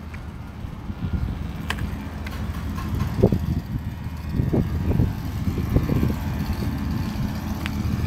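Steady low rumble of a running vehicle engine, with a couple of faint clicks.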